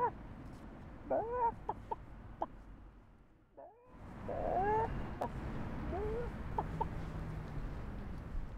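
Chicken clucking: a string of short calls that rise and fall, over a steady low background noise. The sound dips away briefly about three and a half seconds in, then the clucking resumes.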